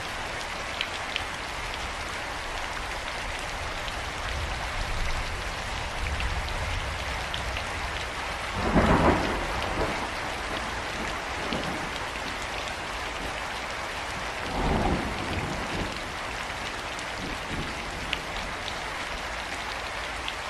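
Steady rain falling and pattering on surfaces, with scattered drips. Thunder rumbles low throughout and swells louder twice, about nine seconds in and again near fifteen seconds.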